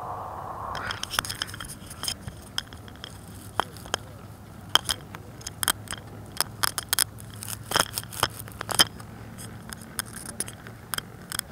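Irregular sharp clicks and light taps, about one to three a second, over a faint steady low hum, picked up close-up by the small onboard camera on a model plane sitting in the grass.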